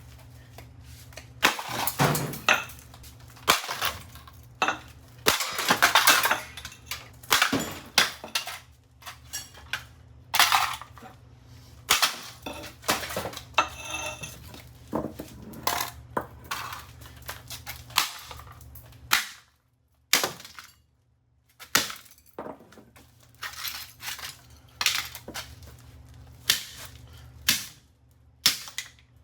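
A microwave oven's control circuit board being chopped apart: irregular sharp blows, each cracking and snapping the board, with the clink and rattle of broken pieces.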